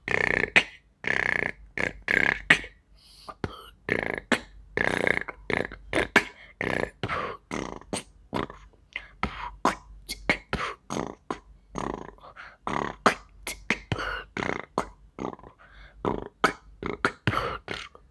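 Solo vocal beatboxing into a cupped hand: rapid mouth-percussion clicks and hits in an irregular rhythm, with a few held notes in the first three seconds.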